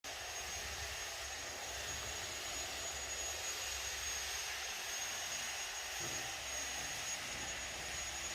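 Steady rushing noise with a thin, constant high-pitched whine and a low hum underneath.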